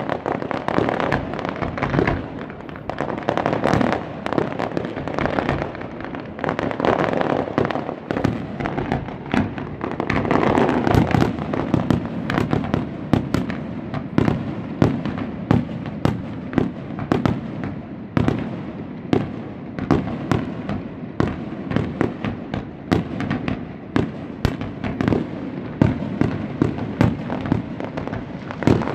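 Fireworks display: a rapid, irregular barrage of booming shell bursts and bangs over continuous crackling, many reports a second at times.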